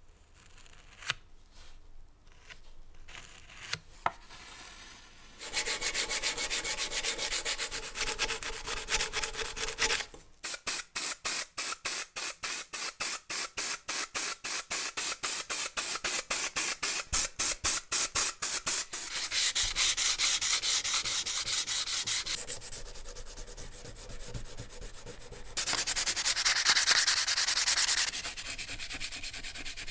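Hand-finishing sounds on a cast-metal cheese grater in turn: faint scraping and clicks, then steady rubbing. A spray-primer can rattles at about five shakes a second, then hisses steadily as it sprays. Near the end sandpaper rubs on the primed metal.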